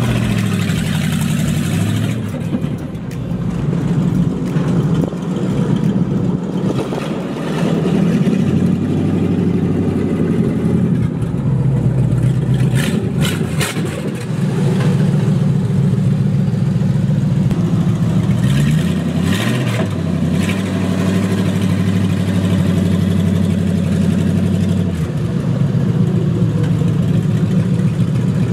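Dodge D100 pickup's engine running, its pitch climbing and falling several times as it is revved or driven.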